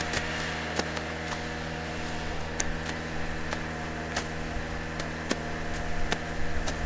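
Tractor engine running at a steady speed, with scattered light clicks and ticks over it.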